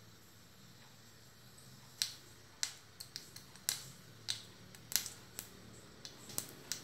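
Mustard seeds popping in hot oil in a steel pan: about two seconds in, scattered sharp pops begin, around a dozen at irregular intervals. The spluttering shows the oil is hot enough for tempering.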